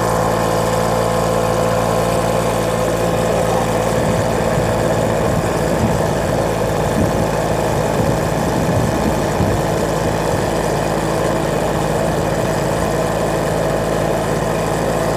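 A vehicle's engine running at a steady pitch while driving, with road and wind noise.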